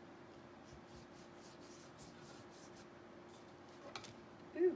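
Paintbrush stroking acrylic paint onto a canvas: faint soft brushing over a low steady hum. There is a small tick about four seconds in and a short low tone near the end, which is the loudest moment.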